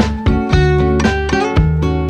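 Instrumental background music with plucked guitar notes over a bass line.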